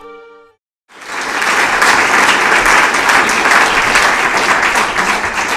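Audience applauding, loud and dense with many hands, rising quickly about a second in and starting to die away near the end. It is preceded by the last half-second of gentle title music fading out.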